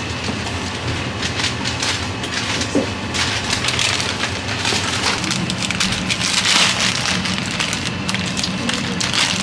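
Close-up crinkling and crackling of plastic and paper food packaging as a cup meal's lid is peeled off and a small plastic sauce sachet is handled and torn open. The crackling is busiest about six to seven seconds in.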